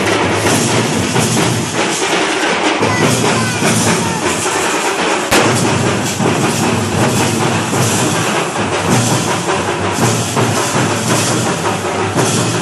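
Loud percussion music with a steady beat, a bright crash recurring about once a second over a dense wash of drumming.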